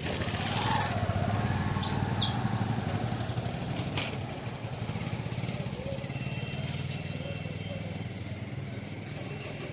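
A motor vehicle engine running steadily, with a higher note that rises about a second in and then slowly falls away, and a single sharp click about four seconds in.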